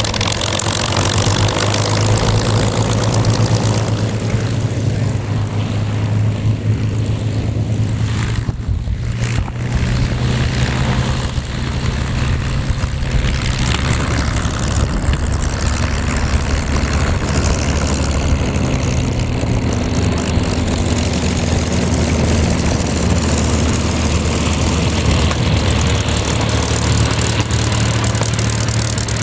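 WWII fighter's piston engine running steadily at low revs, a deep propeller drone with small shifts in pitch.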